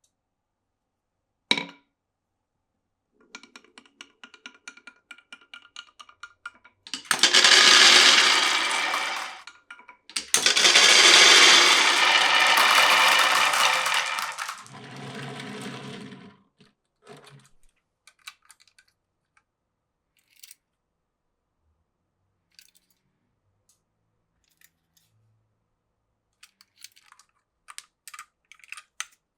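Glass marbles rolling and clattering through a wooden marble run. A single click comes first, then a few seconds of rapid ticking. Two loud rolling rushes of several seconds each follow, then a lower rumble fading into scattered clicks, which grow more frequent near the end.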